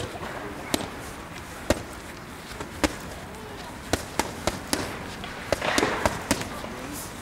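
Boxing gloves striking a trainer's focus mitts: about a dozen sharp slaps, single hits and quick runs of three or four punches.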